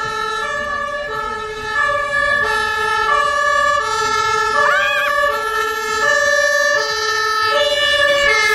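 Ambulance's two-tone siren (the German Martinshorn) going past, switching back and forth between a low and a high note, each held for under a second. It grows louder about two seconds in.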